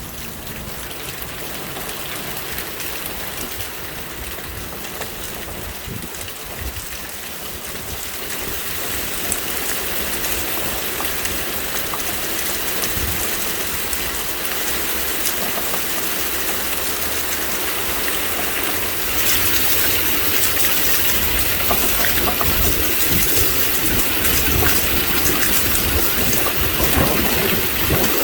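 Heavy rain pouring down, with gusting wind buffeting the microphone in uneven low rumbles. The downpour gets heavier about a third of the way in and again past the middle.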